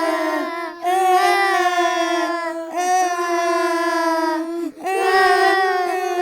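Small girls crying in long, drawn-out wails of about two seconds each, broken by short gasps for breath.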